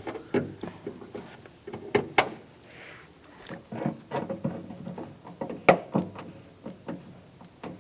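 Irregular light clicks and knocks of door-handle nuts being threaded on by hand and handled against the inside of a pickup's door shell.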